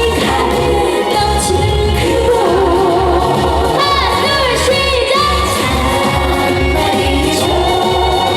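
A woman singing a Korean song live through a PA over an amplified backing track with a steady pulsing bass beat; her voice bends and slides between notes.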